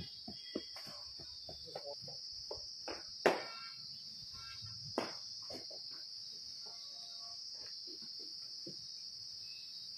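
A steady, high-pitched drone of insects chirring, with a few sharp knocks; the loudest knock comes about three seconds in and another at about five seconds.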